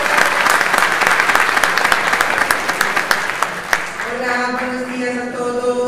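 Audience applauding, with dense clapping that dies away about four seconds in as a voice begins.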